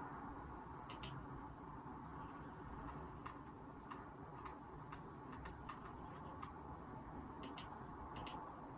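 Computer mouse and keyboard clicking at a desk: sharp clicks about a second in and twice near the end, with fainter scattered key ticks between. Under them is a steady low hum of room ambience picked up by a phone microphone.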